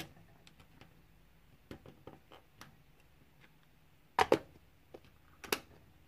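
Small irregular clicks and taps of a diamond-painting pen setting resin drills onto the canvas, with a few louder taps a little past the middle.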